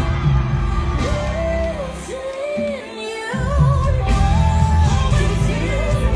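Live pop music: female voices singing a melody over a heavy bass beat. The bass drops out for about a second near the middle, then comes back in.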